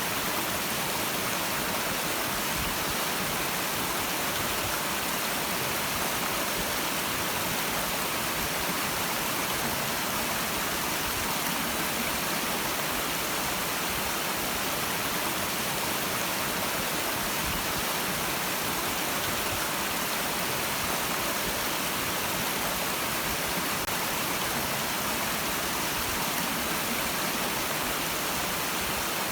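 Clear stream water flowing and babbling over rocks in a steady, unbroken rush.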